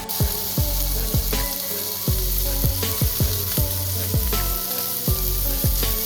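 Bacon-wrapped asparagus sizzling in oil in a frying pan, heard under background music with a steady deep beat.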